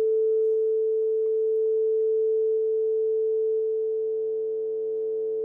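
Steady computer-generated 440 Hz sine tone, the A above middle C, played back from Audacity through the computer's speakers.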